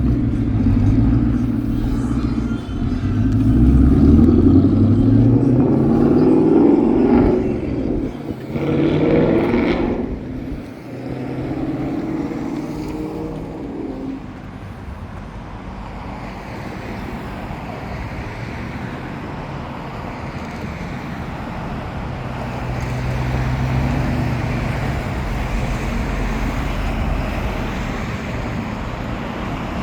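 Car engine speeding up, its pitch climbing over several seconds, with a loud rush about nine seconds in as a vehicle passes close by. After that comes a steady hum of traffic and road noise.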